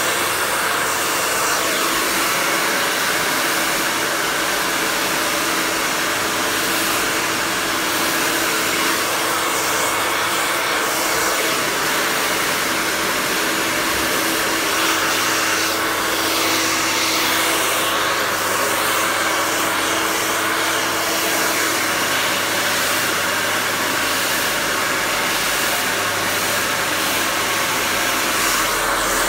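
Handheld hair dryer running steadily while blow-drying hair, a continuous rush of air with a faint steady hum underneath.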